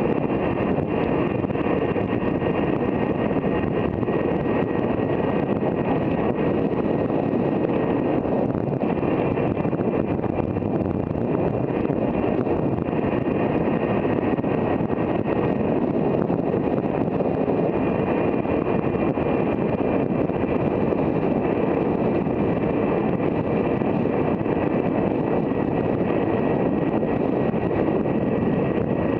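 Wind rushing over the microphone of an electric bicycle ridden at its top speed, with a steady high whine from its Bafang BBS02 mid-drive motor underneath.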